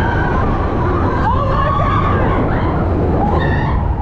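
Mine-train roller coaster running along its track: a loud, steady rumble of the train on the rails with wind noise. Over it, a brief rising high tone a little over a second in and another short high tone near the end.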